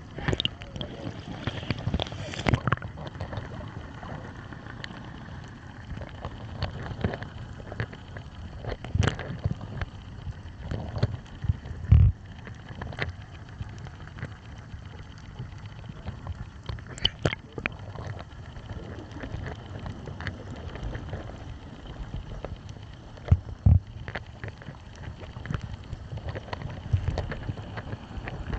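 Muffled sea water sloshing and gurgling around the microphone, with a steady low rumble and irregular knocks and thumps; the loudest thumps come about twelve seconds in and again near twenty-four seconds.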